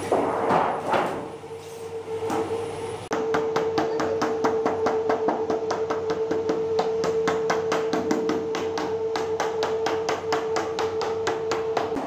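Wooden mallet striking the edge of a thin sheet-metal panel in quick, even blows, about four a second, beating the edge over. Before the blows start, about three seconds in, the sheet is lifted and flexed. A steady hum runs underneath.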